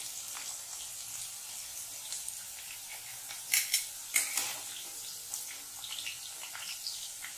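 Potato cubes sizzling in hot oil in a kadhai, a steady hiss, while a perforated metal spoon scoops them out; the spoon knocks sharply twice a little past halfway.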